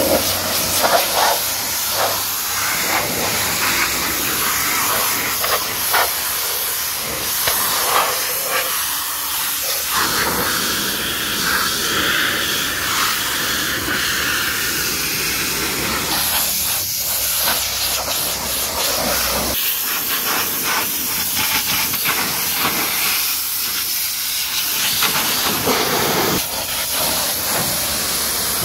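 High-pressure washer lance spraying water onto a car's bodywork: a loud, steady hiss, its tone shifting as the jet moves over the door panels, sill and door openings.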